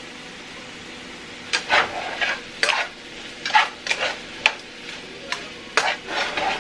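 Diced chicken frying in oil in a skillet, sizzling steadily, with a metal utensil scraping and turning the pieces in irregular strokes from about a second and a half in.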